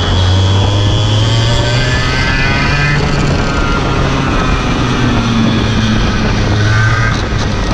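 Racing go-kart engine heard from the driver's seat, its pitch climbing under acceleration, dropping back about three seconds in, then climbing again and falling off near the end.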